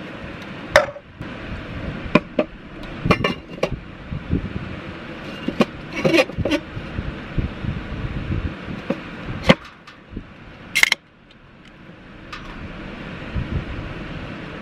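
Aluminium drink cans handled against a stainless steel Thermos can holder: clinks, knocks and scrapes of metal on metal as one can is lifted out and another pushed in. About eleven seconds in, the can's ring-pull is cracked open with a short sharp hiss.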